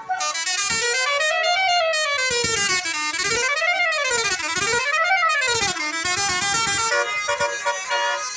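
Bus telolet horn, a multi-tone musical horn, sounding loud with its pitch sliding up and down in three sweeps, then settling into steady tones at several pitches near the end.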